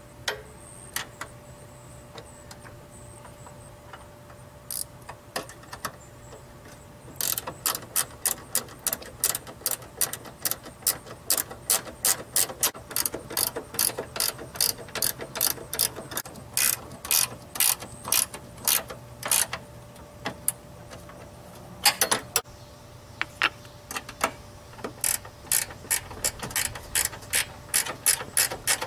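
Ratcheting wrench clicking as it tightens a nut on a pop-up headlight motor's swing-arm shaft: quiet for the first few seconds, then quick runs of clicks at about four a second. There is a brief pause with one louder knock about two-thirds through, then more clicking.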